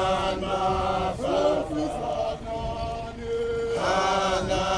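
A group of Zulu men chanting together in unison, a traditional warriors' group chant sung in phrases of long held notes with short breaks between them.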